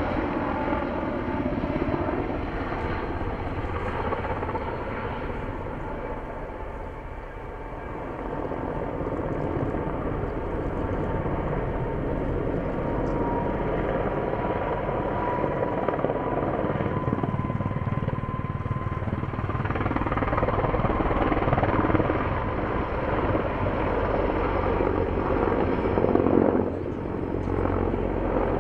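Mil Mi-26 heavy-lift helicopter flying, its rotor and engines running steadily with a whine that is clearest midway. The sound dips about seven seconds in, swells after twenty seconds and drops briefly near the end.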